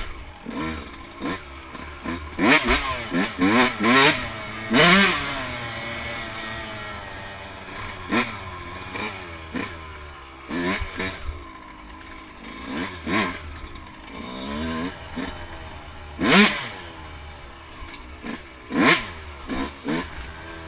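Yamaha YZ125 two-stroke dirt bike engine revving up and backing off again and again as it is ridden through tight turns, with sharp throttle surges a few seconds in and twice near the end.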